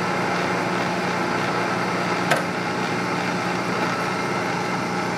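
Bridgeport 1ES horizontal milling machine running: a steady electric-motor and gear hum with several constant tones, and one sharp click about two seconds in.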